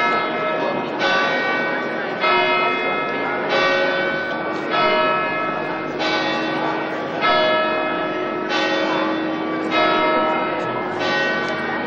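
Church bells ringing in turn, about one strike every 1.2 seconds. Each stroke is a little different in pitch and keeps ringing under the next.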